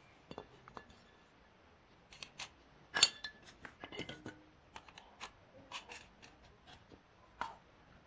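Scattered light clicks and taps of a glass light bulb and a plastic bayonet lamp holder being handled, fitted together and set down on a concrete floor. The sharpest click comes about three seconds in.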